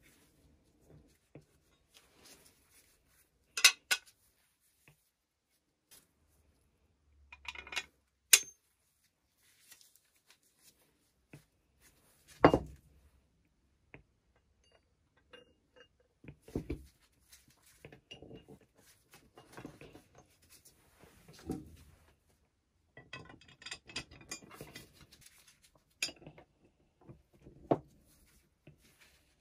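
Steel pulley-block parts clinking and knocking as they are handled and fitted together: a bolt pushed through the painted side plates and hook swivel, spacers and plates set down on the bench. Irregular sharp metal clinks, the loudest about 4, 8 and 12 seconds in, with softer handling and rubbing between.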